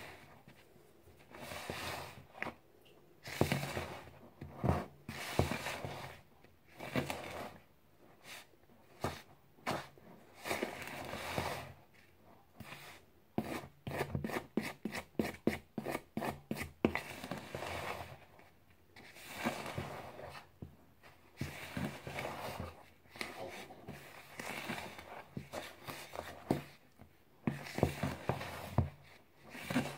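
A utensil stirring dry flour and spices in a mixing bowl, scraping and rubbing against the bowl in irregular strokes, with a run of quick taps near the middle.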